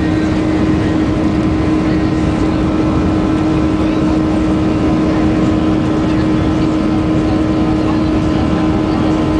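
Jet engines of a Boeing 737-800 (CFM56-7B turbofans) running, a steady loud rush with a steady hum held at one pitch throughout.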